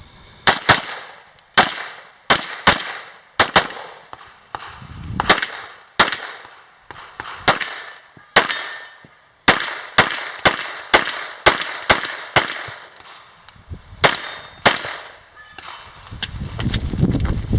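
Semi-automatic pistol fired in quick pairs and strings of shots while a USPSA competition stage is shot, with brief gaps between strings. The shooting stops about a second and a half before the end, giving way to a low rushing noise.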